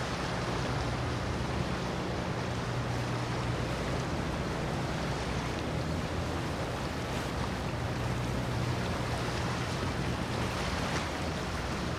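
Boat engines running at low speed: a steady low drone that swells twice, over a constant hiss of water and wind.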